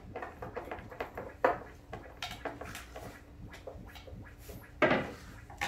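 Scattered knocks and clatter of hands and tools on wooden subwoofer cabinets being assembled, with a louder thump about a second and a half in and a heavier one near the end.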